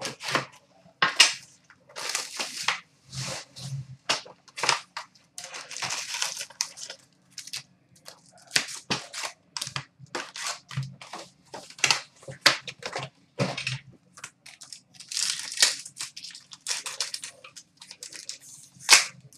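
Sports card packaging being torn open and handled: many short, irregular crinkling and tearing rustles of wrapper and box packaging.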